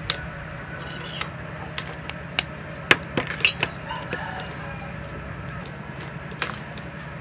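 Sharp clicks and taps of eggshells being cracked with a knife and against a bowl, about ten in all, most of them clustered in the middle. Chickens cluck in the background over a steady low hum.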